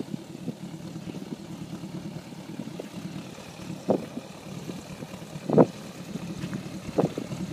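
Small gyrocopter's pusher engine running steadily as the aircraft taxis after landing, with three short thumps in the second half, the middle one the loudest.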